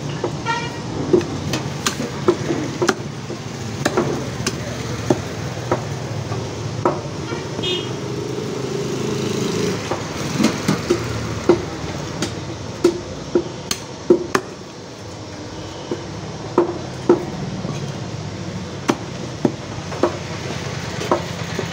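Heavy butcher's cleaver chopping chicken on a wooden log block: sharp, irregular chops, roughly one a second, some in quick pairs, over a steady low background rumble.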